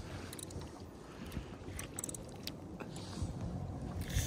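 Steady low wind and water noise around a small fishing boat, with a few faint clicks and a louder knock or rattle near the end.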